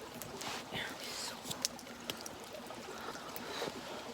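Steady rush of a river, with scattered sharp small clicks over it.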